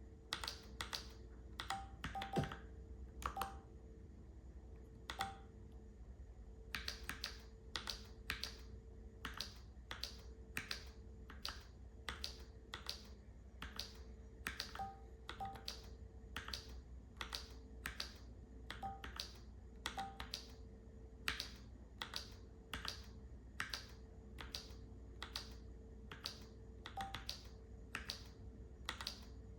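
Slow, uneven keystrokes on a Keychron K4 v2 mechanical keyboard with brown tactile switches: single keys pressed one at a time, about one to two a second, with a pause of a couple of seconds early on, and a few short beeps among the keystrokes.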